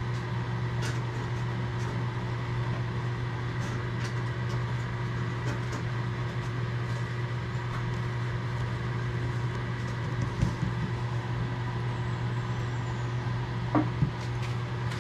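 A running machine gives a steady low hum with a few fixed tones, never changing. A few faint light clicks come through it here and there.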